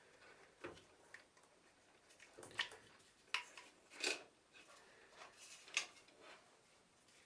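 Scattered light clicks and knocks of plastic and metal parts being handled, as holders and wiring are taken off a vacuum cleaner motor. About five sharp knocks, the loudest about four seconds in.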